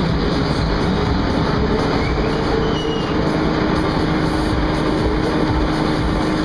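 Loud, steady rumble of a giant swinging-arm funfair thrill ride running, its gondola swinging high on the long arm, with a faint steady machine hum underneath.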